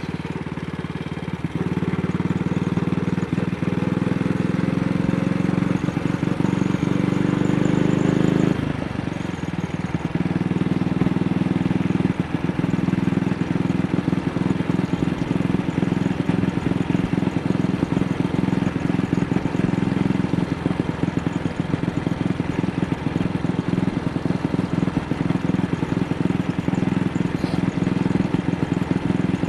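AJS Model 8 motorcycle engine under way. It pulls with rising pitch for several seconds, drops suddenly about eight seconds in, then runs on at light throttle with an uneven, broken beat. That beat is the misfire the rider says comes on at a very slight throttle opening.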